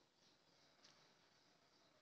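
Near silence, with faint scraping of a wooden spatula stirring minced soya chunks in a non-stick frying pan and a faint tap a little under a second in.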